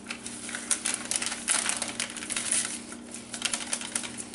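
Clear plastic bag of dry baking mix crinkling in quick, irregular crackles as it is shaken empty over a stainless steel mixing bowl.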